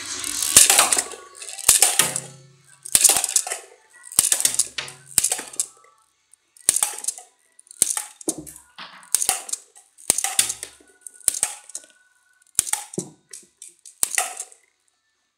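B-daman toy marble shooter fed from its magazine, firing marbles one after another: a sharp plastic click for each shot, then marbles clattering across cardboard and knocking into plastic bottles. About a dozen shots, roughly one a second.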